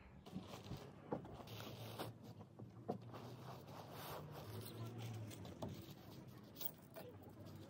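RCE tent's fabric rustling and rasping as the tent is folded and packed away, with scattered small clicks.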